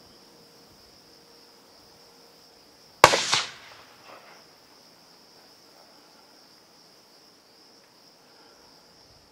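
A single hunting rifle shot about three seconds in: one sharp crack followed by a rolling echo that dies away over about a second, over steady cricket chirring.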